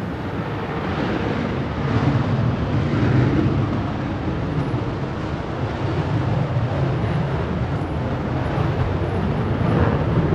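JF-17 Thunder fighter's single Klimov RD-93 turbofan running at full afterburner on its takeoff run: loud, steady jet noise that swells over the first couple of seconds and then holds.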